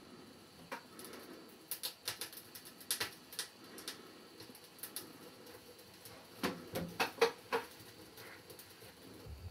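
Kindling catching in a wood-burning sauna stove's firebox, crackling and popping irregularly. A cluster of louder knocks comes about two-thirds of the way through.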